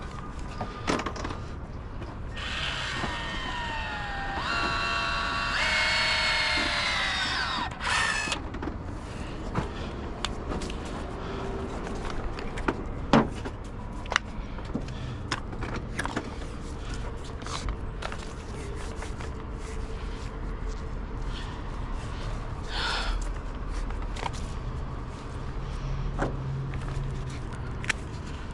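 A power tool running for several seconds with its pitch falling and shifting, followed by scattered clicks and knocks of tools being handled.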